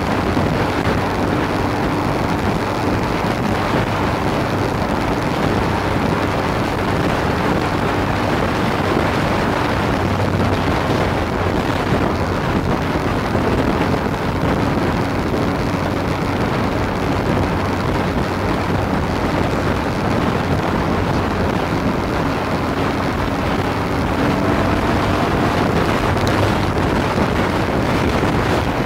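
Motorcycle riding at a steady speed: a constant engine drone under a heavy rush of wind on the microphone.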